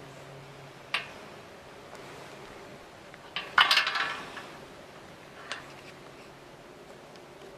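A sharp click, then a short clinking clatter about three and a half seconds in, and another lighter click a couple of seconds later.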